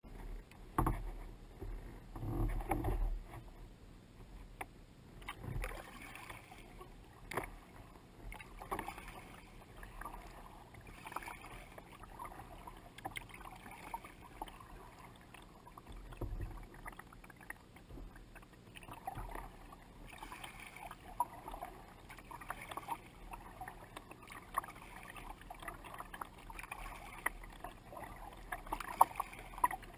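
Water lapping and splashing against a kayak's hull as the kayak is paddled across a lake, in irregular small splashes. A few dull thumps in the first few seconds and a sharp knock near the end.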